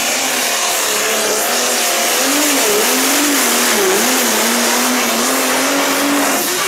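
Pro Stock pulling tractor's turbocharged diesel engine running at full power while hauling the weight sled, its pitch wavering up and down. The engine sound stops abruptly near the end.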